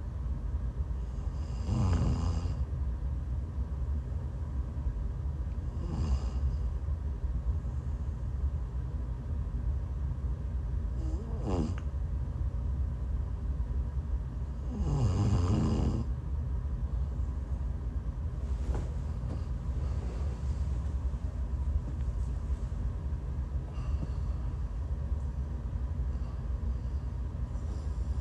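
A woman snoring in her sleep while sick. Four loud snores come a few seconds apart, the loudest about halfway through, followed by a couple of fainter breaths, all over a steady low rumble.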